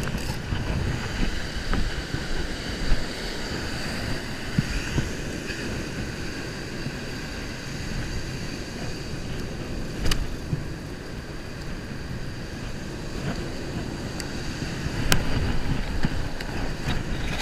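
Wind buffeting the microphone over the wash of surf, a steady low rumble, with two sharp clicks partway through.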